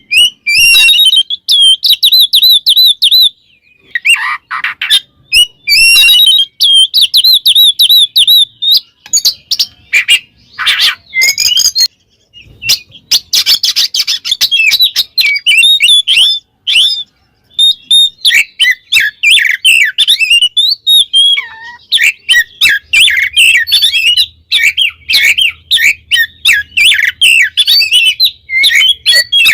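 Oriental magpie-robin (kacer) singing loudly and almost without a break: fast runs of varied whistled phrases and rapid sharp chattering notes. It is full 'ngeplong' song, a rival-calling challenge that provokes other male magpie-robins.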